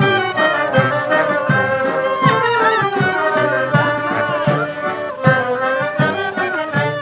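Klezmer band playing a tune: wind melody lines with bent, ornamented notes over a steady beat.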